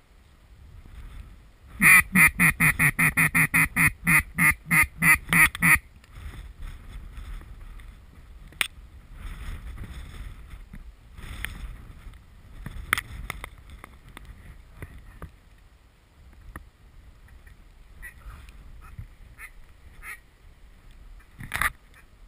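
Duck call blown in a fast run of about sixteen loud quacks, about four a second, lasting some four seconds. After it, wind rushes on the microphone, with a few faint clicks.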